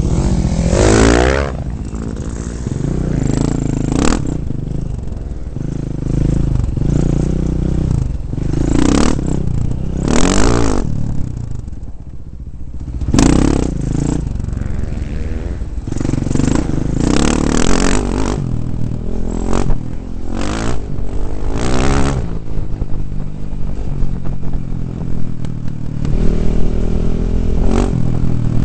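2009 KTM 450 dirt bike's single-cylinder four-stroke engine, heard close up, revving hard in repeated surges and backing off as it is ridden over a rough dirt track, with rattling and scraping from the bumpy ground. The engine dips briefly about twelve seconds in before pulling hard again.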